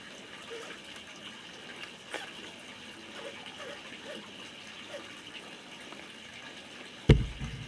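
Steady whirring hiss of an Axial SCX10 Honcho RC crawler's electric motor and gears as it crawls over a dirt pile, with a few faint short chirps. Near the end comes a single sudden loud thump.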